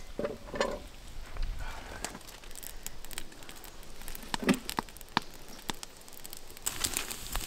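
Camp cooking being set up: crackling and crinkling with scattered clicks, and a louder knock about four and a half seconds in.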